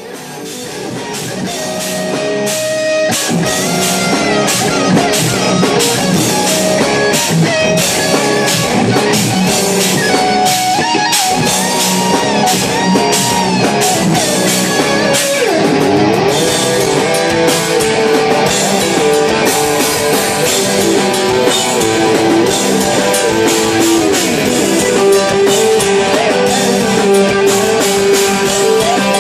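Live rock band of electric lead guitar, bass guitar and drum kit, recorded from the audience. It fades in over the first few seconds. The lead guitar plays bent, gliding notes, with one deep swoop down and back up in pitch about halfway.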